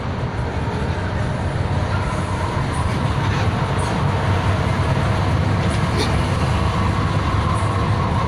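An old engine running steadily: a low drone with a steady higher whine on top and a few faint clicks.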